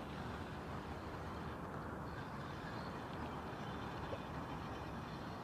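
Steady outdoor background noise: an even low hiss and rumble with no distinct events.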